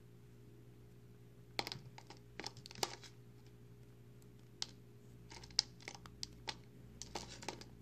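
Dry, crumbly recycled soap flakes crushed and crumbled between the fingers, giving clusters of small crisp crackles and snaps with short pauses between them.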